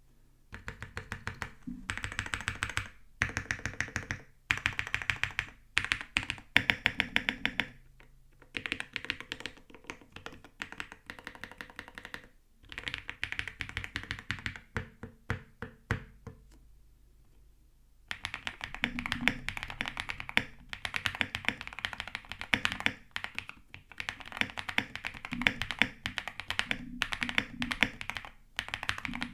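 Typing on a spring-mounted Owlab Link65 custom mechanical keyboard with an FR4 plate, lubed and filmed Graphite Gold switches and OTC Modo Light keycaps. Short runs of fast keystrokes with brief breaks, a pause of about two seconds past the middle, then steady continuous typing.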